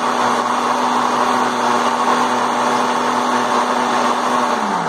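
Countertop blender running at a steady speed, blending leaves in liquid. Near the end it is switched off and the motor's pitch falls as it spins down.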